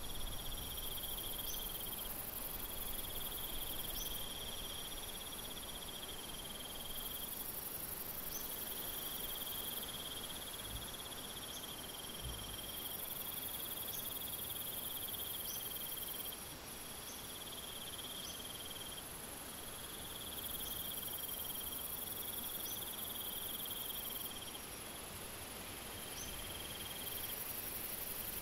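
Insects trilling: a very high, hiss-like buzz that switches on and off every couple of seconds, over a lower steady trill that comes in stretches of one to two seconds with short gaps.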